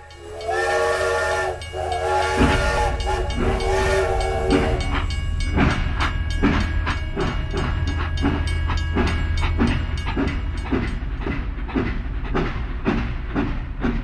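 Toy steam locomotive's steam-train sound effect: a whistle blowing for about four seconds with a brief break. Steady rhythmic chuffing joins it and carries on, about two to three beats a second.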